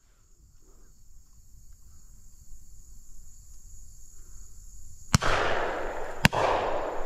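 Two shotgun shots about a second apart near the end, each echoing across the open field, fired at an incoming dove. A steady high insect chorus runs underneath.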